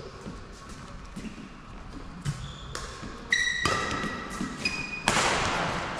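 Badminton rally on an indoor court: sharp racket-on-shuttlecock hits and footfalls, with short high-pitched sneaker squeaks on the court surface about halfway through. A louder, noisier scuffle comes near the end.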